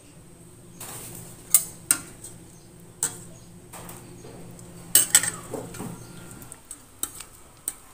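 Metal ladle scooping fish soup from a stainless steel pot, clinking against the pot's rim and sides: a handful of sharp clinks, the loudest about five seconds in.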